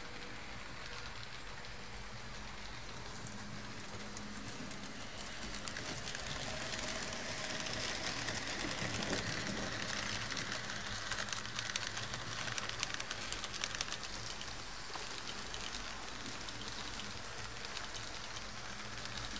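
H0-scale model train running on the layout's track: a steady crackly rattle of wheels and motor that swells in the middle and eases off near the end.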